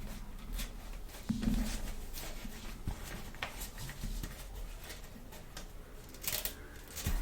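Small plastic toy pieces being handled and set down: scattered light clicks, taps and rustles, with a soft bump about a second and a half in and a brief scrape near the end.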